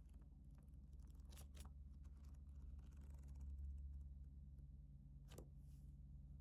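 Near silence over a steady low hum, with faint rustling and a few soft clicks from packaging being handled: two close together about a second and a half in, and one more about five seconds in.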